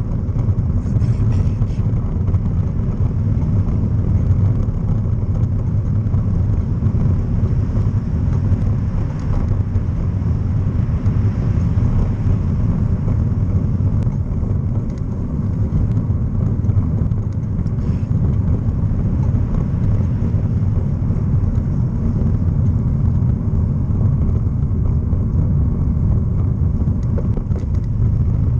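Steady low rumble of wind and road noise on the microphone of a camera riding on a moving bicycle.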